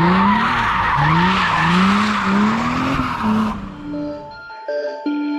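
Mercedes SLK320's M112 V6 revving in repeated climbing pulls while its rear tires squeal in a drift or burnout. About three and a half seconds in the car sound cuts off abruptly and music with plucked, chiming notes begins.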